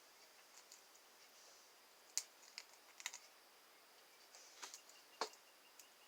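Near silence with about half a dozen faint, sharp clicks and taps scattered irregularly, the clearest a little past two seconds and five seconds in.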